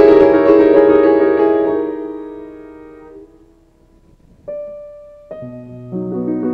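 Piano background music: a held chord slowly dies away, then after a brief hush a single note sounds and new chords with a bass line come in.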